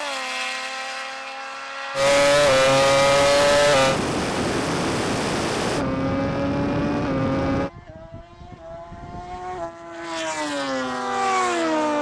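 Rimac Nevera hypercar and racing motorbikes accelerating flat out down a quarter-mile drag strip, heard in several cut-together shots: steady high-pitched motor and engine whines, a loud stretch about two seconds in, and a falling pitch as one machine passes near the end.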